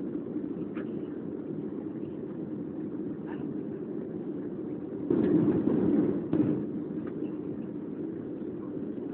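Steady low rumble of a Boeing 737's engines and airflow heard inside the cabin during the descent to landing, with a louder, rougher stretch from about five to six and a half seconds in.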